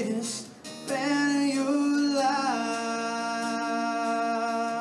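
A man singing with his own acoustic guitar accompaniment. After a short dip his voice comes back about a second in and settles into one long held note for the second half.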